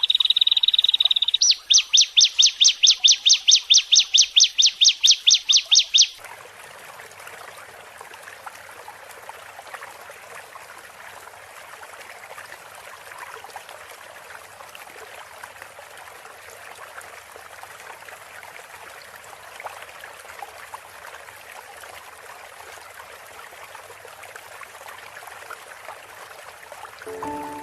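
A loud, high, continuous trill, then a rapid series of loud chirping notes, about four or five a second, that stops abruptly about six seconds in. After that, steady trickling, running water fills the rest, from a masteran recording of birdsong with water sounds played to train songbirds.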